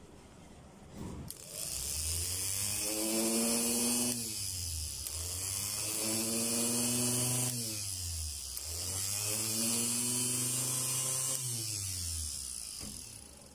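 Bare mixer grinder motor, a universal motor fitted with a new bush, switched on three times. Each time it spins up with a rising whine and a high hiss, runs for two to three seconds, then coasts down. It runs with only the motor's own sound, with no grinding from a worn bush.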